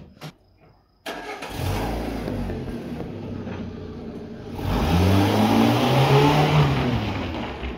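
A car engine comes in suddenly about a second in, then revs up: its pitch rises about halfway through, holds, and eases off near the end.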